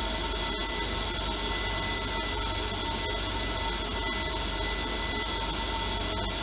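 Steady rush of air through a micro gas turbine combustor test rig, with a thin steady whine in it; the combustor is not yet lit.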